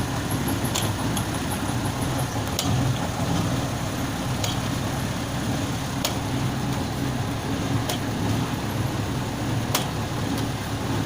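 Red-brick molding machine with its clay mixer running steadily, a low mechanical drone, with a sharp click or knock about every two seconds.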